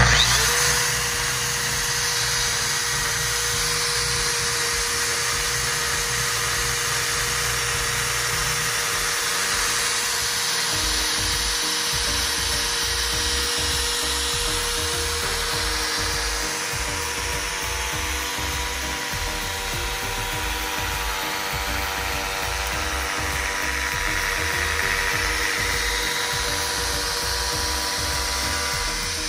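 Electric motor of an orbital pipe beveler running steadily with a high whine as its milling inserts cut a cold bevel on schedule 40 pipe, while the head is cranked around the pipe. Background music plays along with it.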